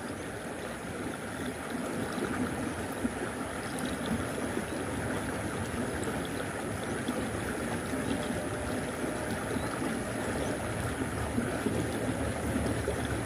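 Irrigation-canal water flowing and rushing past the concrete bank: a steady, even hiss that rises slightly in level over the first few seconds.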